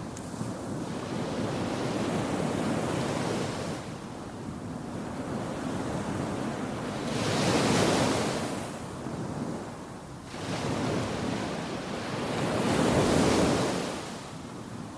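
Surf washing onto a beach, with wind buffeting the microphone. The noise swells and fades as the waves break, loudest twice in the second half.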